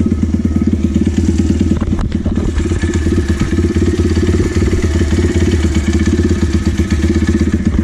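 Apollo 150 YX V3 pit bike's single-cylinder engine idling steadily.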